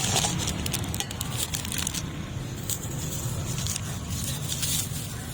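Street ambience: a steady low rumble of traffic, with light crackling and clicking from handling in about the first second.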